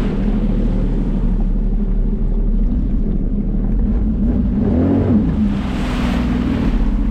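Jet ski engine running steadily on the water, its pitch rising and falling about five seconds in, followed by a hissing rush lasting a second or so.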